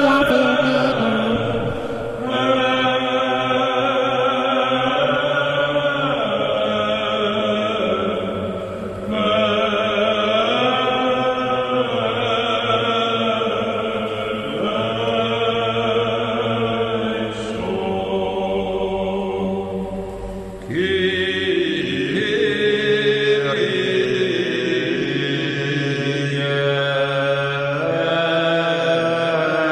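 Background music: a chanted vocal line of long held notes that step from pitch to pitch every few seconds.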